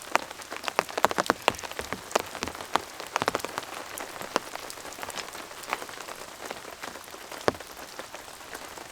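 Rain falling steadily, with heavy individual drops tapping irregularly on a nearby surface, in thicker clusters about a second in and again around three seconds in.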